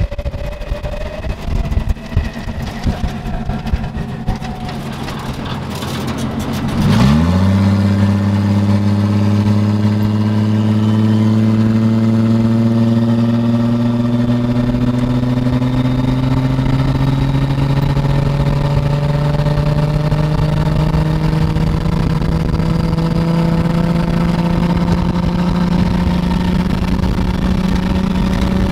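A car engine catches about seven seconds in with a quick rise in pitch, after a few seconds of scattered knocks. It then runs steadily, its pitch climbing slowly and evenly.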